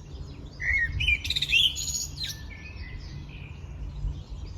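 Songbird singing: a quick run of chirps and buzzy trills in the first two seconds or so, then fainter calls, over a low steady background rumble.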